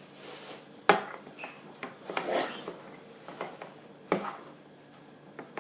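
A utensil stirring thick slime in a bowl, scraping and knocking against the bowl, with two sharper knocks, about a second in and about four seconds in.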